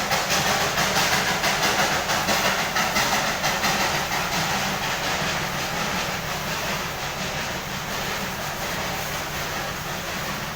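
Darjeeling Himalayan Railway narrow-gauge steam locomotive chuffing, about three exhaust beats a second over a constant hiss of steam. About halfway through, the beats blur into a steadier sound and fade a little.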